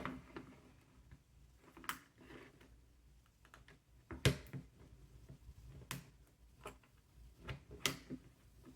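Scattered light clicks and taps of an iPhone and small repair tools being handled as its screen comes away: a few sharp clicks roughly every two seconds with fainter ticks between, the loudest about four seconds in.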